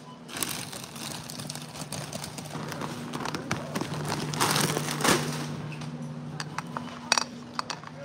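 Plastic tortilla-chip bags crinkling as they are handled, densest in the first five seconds, then a few sharp clicks near the end, over a steady low hum.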